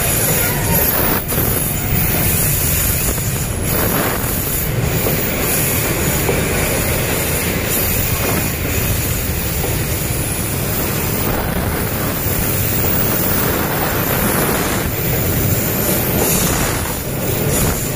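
Freight wagons rolling past at close range: a steady rumble and rattle of steel wheels on the rails, with a few separate clacks, passing into a rail tunnel.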